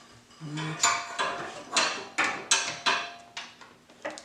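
Metal hand tools clinking and clanking against one another: about six sharp metallic knocks, each with a short ring, then quiet for the last second.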